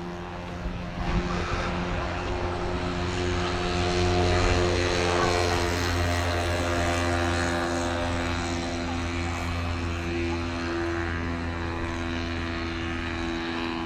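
Propeller aircraft engine droning overhead, a steady note that swells to its loudest about a third of the way through and then slowly eases off.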